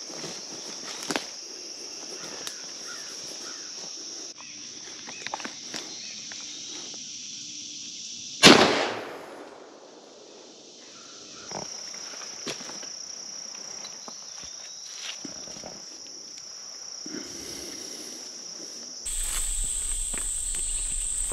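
A single shotgun shot about eight seconds in, sharp and loud, with a short echo dying away through the woods. Insects drone steadily in the background, with a few light clicks and rustles.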